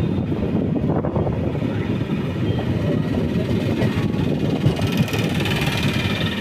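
Sanghamitra Express passenger train rumbling steadily, with a hiss coming in about five seconds in.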